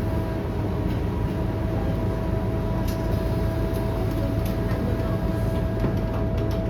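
Scania K230UB bus heard from inside the cabin: steady engine and running rumble with a thin, steady whine over it.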